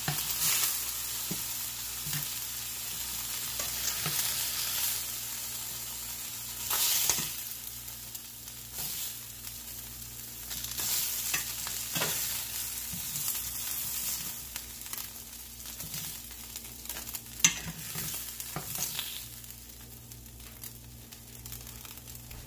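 Chicken tenders sizzling in hot oil in a stainless steel skillet as metal tongs lift them out, with sharp clicks of the tongs against the pan. The sizzle grows fainter near the end as the pan empties.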